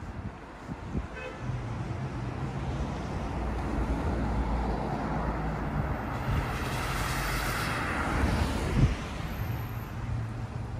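A car driving past on the road, its tyre and engine noise swelling over several seconds and fading again, over a steady low hum. A single thump near the end.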